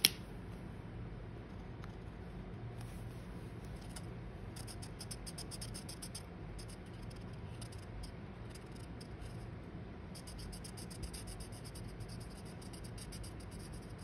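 Marker tip scratching on paper in quick back-and-forth colouring strokes, in two runs of a second or two each. A single sharp click right at the start is the loudest sound.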